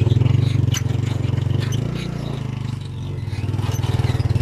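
A tricycle's motorcycle engine runs steadily under way, easing off a little about two seconds in and then picking up again. Light clicks and rattles come from the sidecar.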